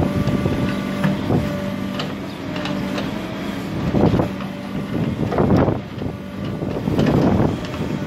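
JCB 3CX backhoe loader's diesel engine running under load while the backhoe arm and bucket work the dirt. Its steady drone is broken by several louder, noisier swells in the second half.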